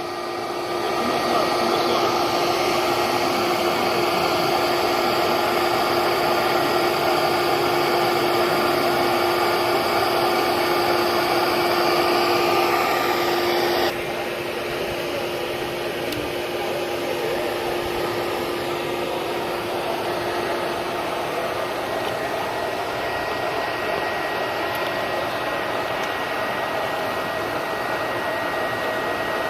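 A vacuum-type motor running steadily with a whining hum. About halfway through, the sound changes abruptly, losing its steady tone and becoming a little quieter.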